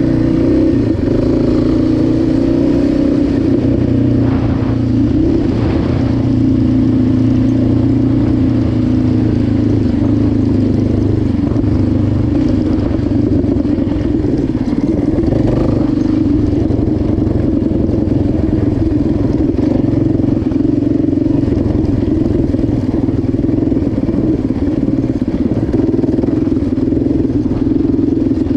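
Yamaha Raptor 700 ATV's single-cylinder four-stroke engine running steadily while the quad is ridden along a dirt track, its pitch mostly level with small rises and dips.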